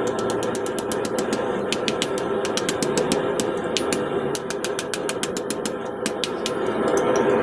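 Steel tools clicking and tapping against steel bar stock during blacksmith work, several quick irregular clicks a second, over a steady mechanical drone.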